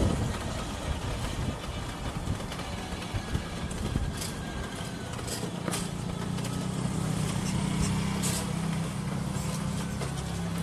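Wind and road noise while riding an e-bike, with a few light clicks. About halfway through, a motor vehicle's steady low engine hum joins in.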